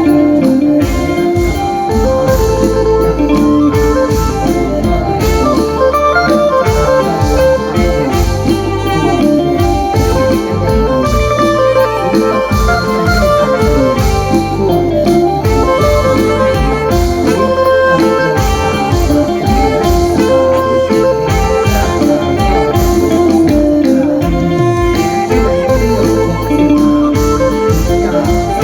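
Loud live lam sing (mor lam) band music: a sustained, organ-like melody over a steady drum beat.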